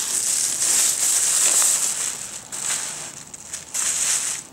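Clear plastic bag crinkling and rustling as a small solar panel is pulled out of it by hand. It is loudest through the first two seconds, then comes in patches with another burst near the end.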